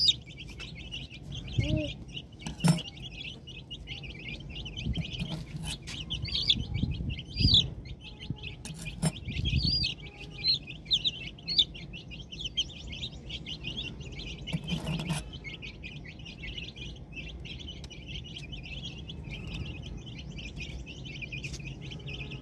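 Many young chicks cheeping continuously in a dense, high-pitched chatter. A few sharp clicks and dull thumps break in over the first half or so.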